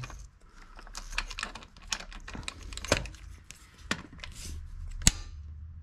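Light, irregular clicks and taps of a metal tool being handled under the engine, with one sharper click about five seconds in.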